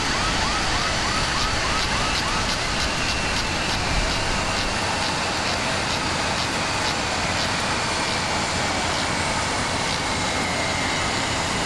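A siren-like warbling tone, repeating about three times a second for the first three seconds and then sweeping more slowly, over a loud, steady rushing noise.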